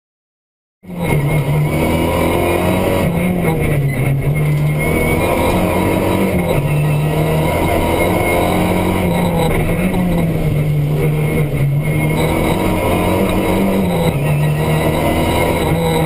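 Renault Mégane N4 rally car's turbocharged four-cylinder engine, heard from inside the cabin, running hard at speed with the revs rising and falling. It starts about a second in. The anti-lag ("bang bang") system is switched off, so the turbo works normally and there are no bangs on lift-off.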